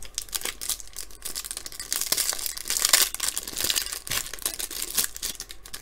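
Clear plastic wrapper around a stack of trading cards crinkling and tearing as it is peeled open by hand: a dense crackle, loudest about two to three seconds in.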